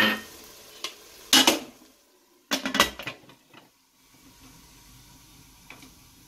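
Metal clanks and rattles of an aluminium pressure cooker as its lid is put on, in three bursts over the first three seconds. A faint steady sizzle of the curry cooking in the covered pot follows.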